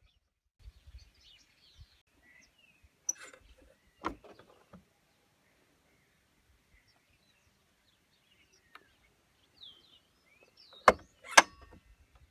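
A few sharp knocks as a pallet-wood board is handled and set against a mitre saw, the two loudest coming close together near the end. Small birds chirp faintly in the background.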